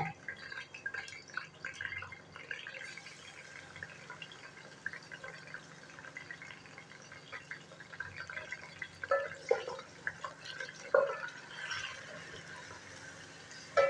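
Raw chicken pieces frying in oil in a metal pot: a faint sizzle with many small crackles and pops as the chicken's moisture hits the oil. A few louder knocks come past the middle.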